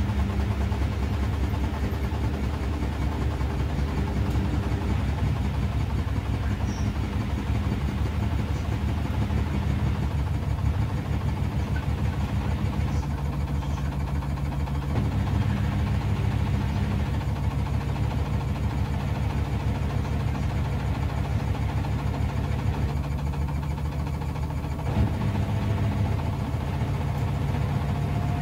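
Front-loading washing machines running, a steady low motor hum from the drum turning. A faint rising whine comes in near the end.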